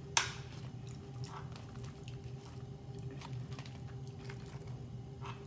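Close-up eating sounds: soft, wet chewing and small mouth clicks, after one sharp click near the start, over a steady low hum.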